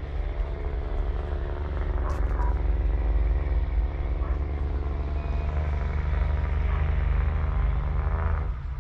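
Thornycroft Antar Mk3's Rolls-Royce 16.2-litre supercharged eight-cylinder diesel idling steadily, with a deep low hum; the sound eases off a little near the end.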